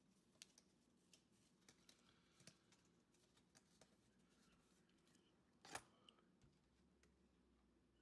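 Near silence with faint, scattered clicks of plastic-sleeved trading cards being shifted in the hand, one sharper click a little before six seconds in.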